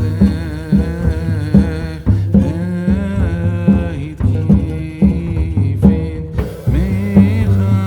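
Background music with a steady beat, a bass line and a vocal melody.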